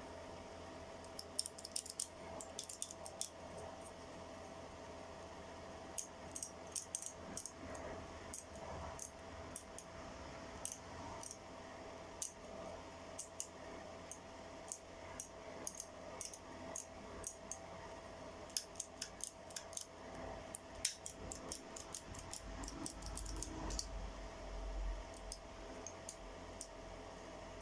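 Small metal tools and parts clicking and clinking as they are handled, in irregular clusters of sharp ticks, over a steady faint hum.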